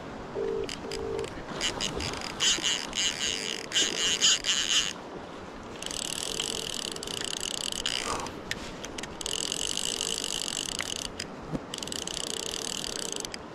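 A phone's ringback tone on an unanswered call: a low double ring, 'ring-ring', about every three seconds, the British pattern. Over it, a salmon fly reel's click check buzzes in long runs as the hooked fish takes line, with river water running underneath.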